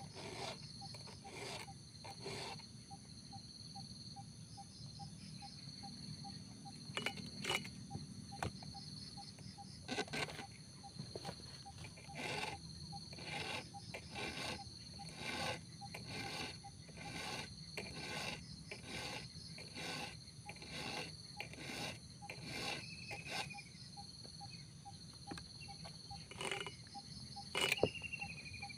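Round file rasped by hand across the cutters of a Robin chainsaw's chain, about one stroke a second, some strokes louder than others. Insects chirp and buzz steadily behind.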